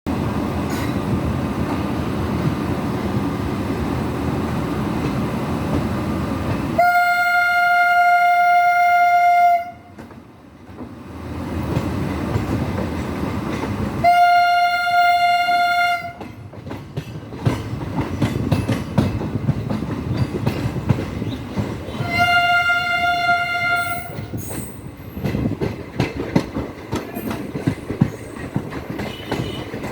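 A train running on its tracks with a steady rumble, its horn sounding three times in single-pitched blasts of two to three seconds each. Wheels clatter over the rail joints in a rhythmic clickety-clack, strongest in the second half.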